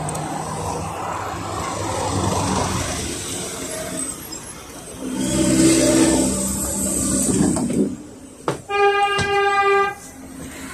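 Road traffic passing, then a PAZ 4234 city bus with a Cummins diesel pulling in at the stop, with a loud hiss of air about halfway through. Near the end a click and a steady beep lasting about a second.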